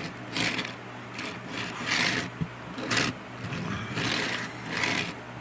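Plastic wheels of a Transformers Runamuck toy car in car mode rolling back and forth over a surface, in short rubbing strokes about once a second, with a small click about halfway through.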